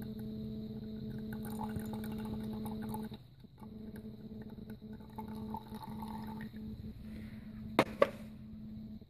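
Onion-water and honey liquid being poured and strained over a steady hum, with two sharp knocks close together about eight seconds in.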